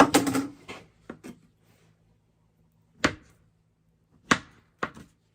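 Knife slicing bananas on a cutting board: a clatter of handling at the start, then a few sharp, irregularly spaced cuts knocking against the board.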